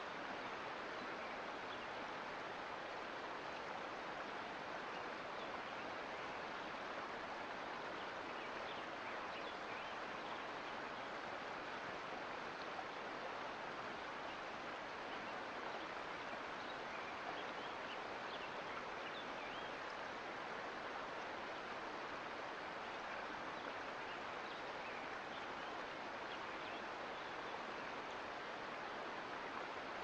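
Mountain creek flowing steadily: an even rush of water with many small splashes and gurgles all through.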